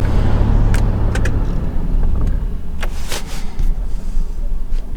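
Diesel Range Rover Sport running, heard from inside the cabin: a steady low hum with a few light clicks.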